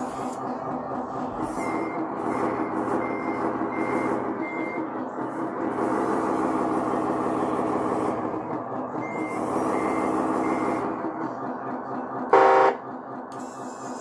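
Sound module of an RC CAT 140H motor grader model playing a diesel engine note that swells and eases as the model is driven, with a reversing alarm beeping in two runs (five beeps, then three). Near the end a short, loud horn blast sounds.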